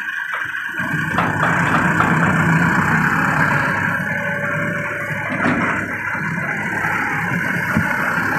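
Diesel engine of a loader tractor running hard while the front-end loader lifts its bucket and the tractor reverses. The engine grows louder about a second in and eases back after about five seconds.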